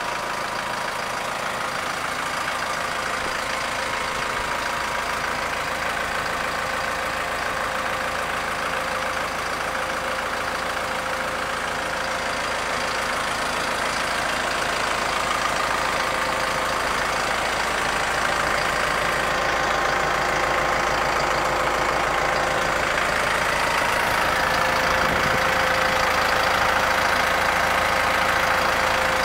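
Kubota M5111 tractor's diesel engine idling steadily, growing a little louder in the second half.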